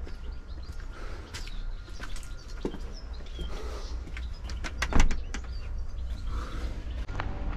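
Footsteps on stone steps with a low wind rumble on the microphone and a few bird chirps, and one loud thump about five seconds in.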